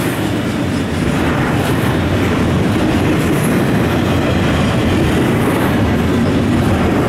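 Double-stack container freight cars rolling past: a steady rumble of steel wheels on rail, with clicking as the wheels cross rail joints, slowly growing louder.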